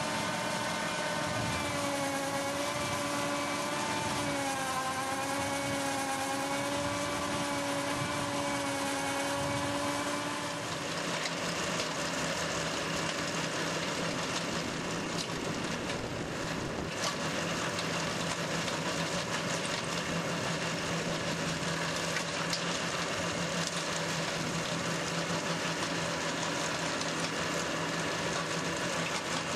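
Tractor engine running under load while driving a Valentini FR implement through stony ground, its pitch wavering slowly up and down. About ten seconds in, the sound switches to a denser, rougher noise over a steady low hum.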